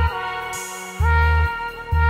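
Background music: sustained chords that change pitch about once a second over a deep bass that comes and goes.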